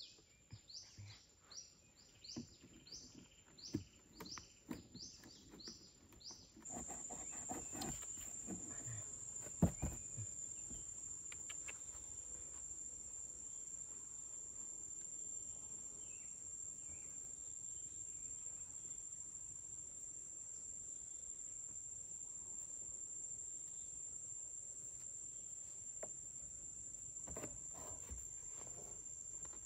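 Insects drone steadily at a high pitch; the drone grows suddenly louder about seven seconds in. Until then a short, high chirp repeats about twice a second. Scattered soft knocks and rustles of cardboard and string being handled are heard, with one sharper knock about ten seconds in.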